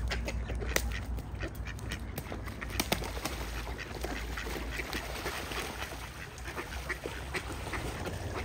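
Mallard ducks quacking over splashing, churning river water, with a few sharp clicks about a second in and near three seconds.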